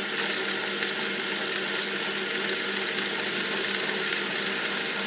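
Automatic vinyl roll slitting lathe spinning a vinyl tape roll while its blade cuts through it: a steady machine hum under a dense, even hiss.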